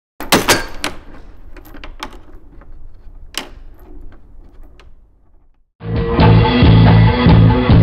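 Scattered clicks and knocks for about five seconds, then a post-hardcore band's live set cuts in abruptly near the end: drum kit with bass drum and snare, bass and guitar, loud and rough.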